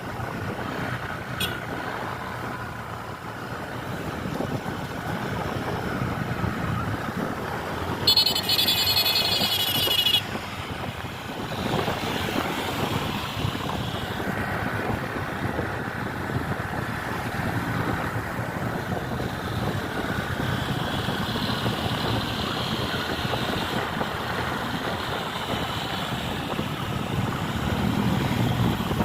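Road traffic running steadily, with a bus's telolet horn sounding once, loud and high-pitched, for about two seconds about eight seconds in.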